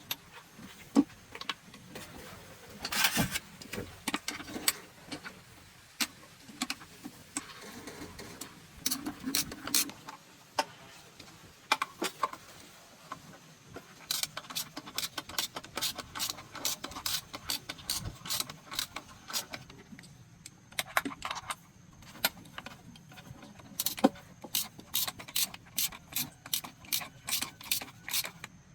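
Hand tools working on metal engine parts: scattered clicks and knocks, then long runs of regular clicks at about three a second.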